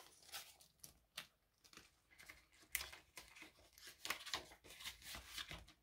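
Faint, intermittent rustling and crinkling of paper prop-money bills being handled, folded and slid into a budget binder's clear plastic zipper pouch.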